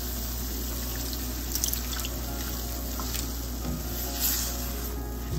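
Water poured into a hot nonstick pan of frying onion and spice masala, sizzling as it mixes in, while a wooden spatula stirs and scrapes the pan a few times.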